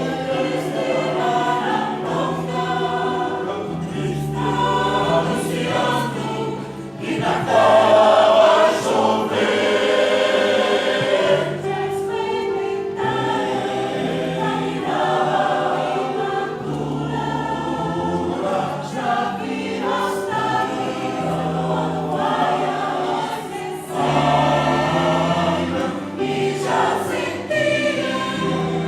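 Choir singing in parts with piano accompaniment, the sound swelling much louder about seven seconds in.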